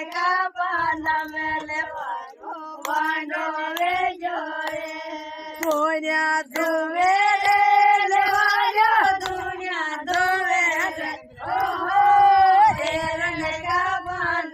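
Women singing a Bhil folk wedding song together without instruments, in long held notes that glide up and down, with a short break about eleven seconds in.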